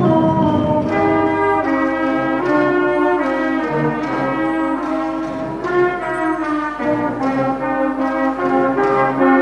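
A brass band playing held chords, trumpets and trombones together, moving from chord to chord about every second.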